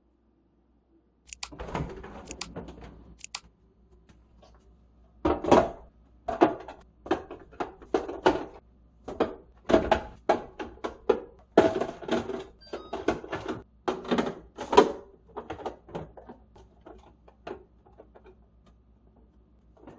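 Hard plastic storage canisters clacking and knocking as they are set one after another into refrigerator door shelves: a dense, irregular run of sharp clicks and knocks starting about a second in.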